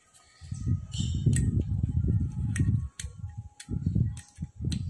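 Rubber-gloved hands working a wire connector onto a scooter tail-lamp terminal: bouts of low rubbing and scraping with small sharp clicks, the rubbing louder and longest in the first half.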